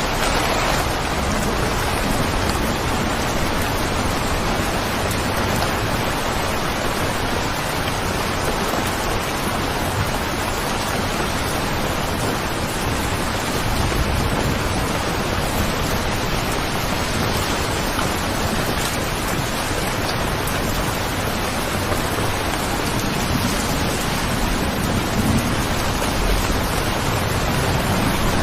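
Steady rain, an even, unbroken hiss of falling rain.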